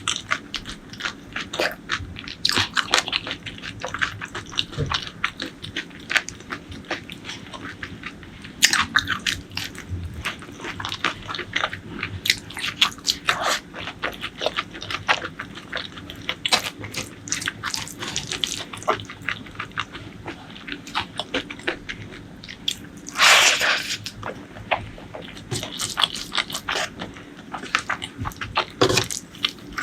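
Close-miked eating: chewing and biting food, heard as a dense run of irregular small clicks. There is a louder burst of noise lasting about a second roughly three quarters of the way through.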